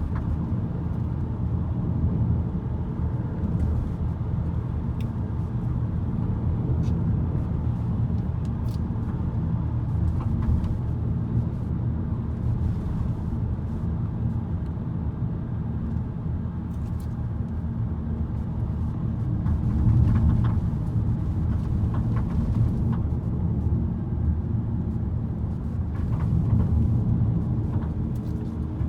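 SEAT Alhambra car running with a steady low rumble, swelling a little about two-thirds of the way in and again near the end. It is recorded to show a knocking noise the car makes.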